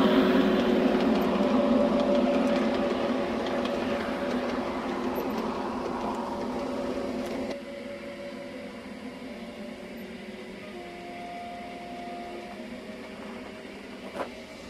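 LGB garden-scale model of a Rhaetian Railway train rolling close past on its track, wheels running on the rails with a steady hum, fading as it moves away. About halfway through the sound drops suddenly to a fainter distant running, with a single click near the end.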